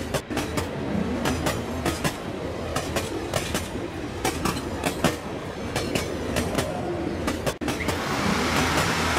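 HO-scale model train cars rolling along the track, heard from a camera riding on the train: a steady rumble with irregular sharp clicks as the wheels cross the rail joints. About eight seconds in it turns to a denser hiss.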